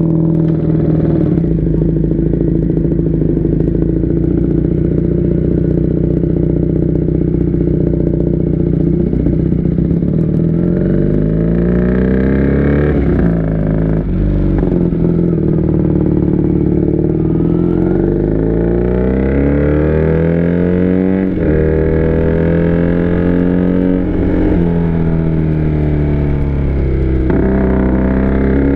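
Benelli TNT 300's 300 cc parallel-twin engine heard from the saddle, running at a steady low note, then pulling away and revving up through the gears, its pitch dropping back at each gear change. Later it falls as the bike slows, then climbs again near the end.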